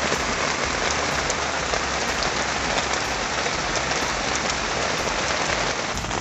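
Heavy rain falling steadily, a dense hiss of countless drops with individual drops ticking through it.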